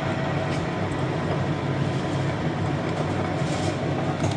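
Sheldon 13 x 24 inch variable-speed metal lathe running slowly in back gear, its 2 hp three-phase motor and gear train making a steady mechanical running noise.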